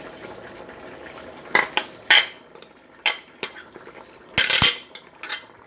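A spoon scraping rice off a plate into a pot of broth, clinking and knocking against the plate and the pot several times, loudest in a cluster of knocks near the end.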